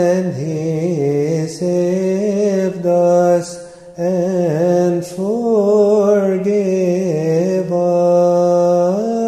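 A single voice chanting a Coptic hymn in a long melisma: held notes on drawn-out vowels, ornamented with quick wavering turns, with a few short breaks for breath.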